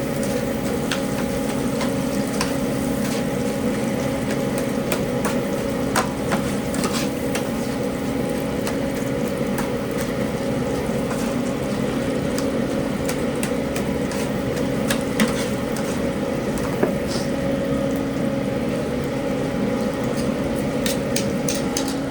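Commercial kitchen background: a steady droning hum of equipment with a few constant tones, with scattered clinks and taps of utensils and pans on top.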